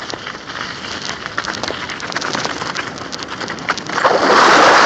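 Mountain bike tyres crunching and crackling over frozen snow and ice, with many small clicks from the bike's rattle. About four seconds in, a louder rush of noise takes over.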